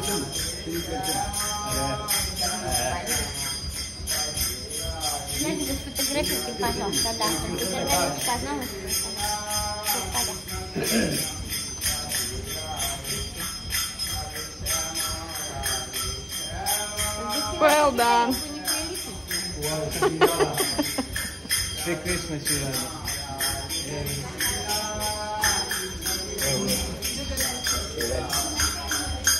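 Small bells jingling rapidly and without a break, with people's voices over them.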